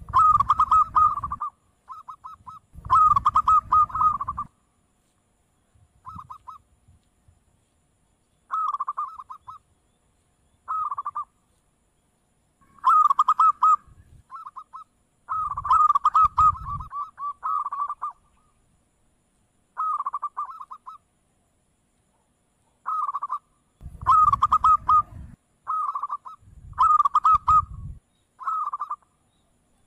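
Zebra dove (perkutut) cooing: short phrases of quick, rolling coos, repeated with pauses of a second or two between them, and a low rumble under several of the phrases.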